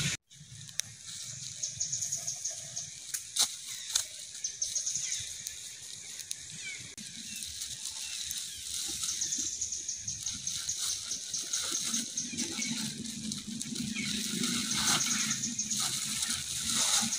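Outdoor ambience with repeated high chirping trills every few seconds and scattered sharp clicks and crackles, with a low steady hum coming in during the last few seconds.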